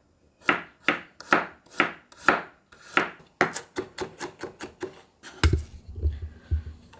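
Kitchen knife slicing garlic cloves on a wooden cutting board: sharp strokes about twice a second, then quicker chopping from about halfway. Near the end come a few duller knocks and rubbing.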